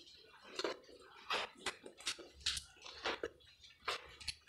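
Footsteps crunching and scuffing on a gritty, debris-strewn floor: a string of short, sharp crackles, irregular at about one or two a second.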